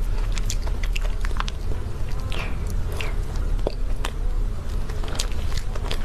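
Close-miked ASMR mouth and handling sounds: an irregular string of small sharp clicks and crackles over a low steady hum.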